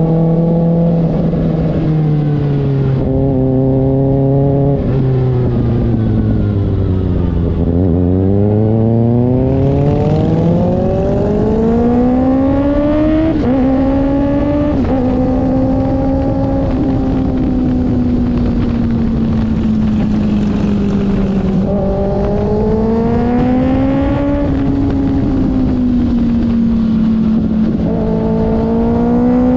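2024 Kawasaki ZX-6R's inline-four engine running through an IXIL aftermarket exhaust under changing throttle. Its pitch sinks over the first several seconds, climbs steeply with a couple of abrupt steps, then holds fairly steady, dipping and rising gently.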